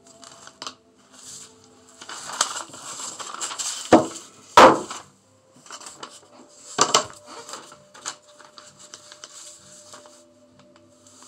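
Rustling and knocking from the phone filming being bumped and handled, with two loud knocks about four seconds in and another about seven seconds in, over faint steady background tones.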